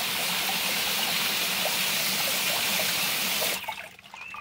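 Water spraying from a garden hose nozzle onto crushed ore on a wire-mesh sifter screen, rinsing the rocks. It is a steady spray that cuts off suddenly near the end, leaving a few faint drips.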